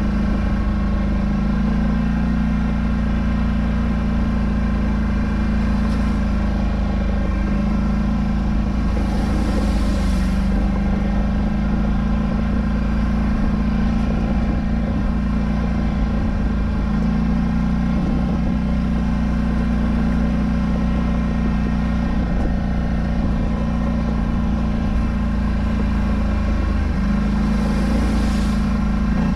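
Polaris Scrambler 1000 ATV's parallel-twin engine running under way, its pitch stepping up and down a few times with the throttle. Two brief hisses, about ten seconds in and near the end.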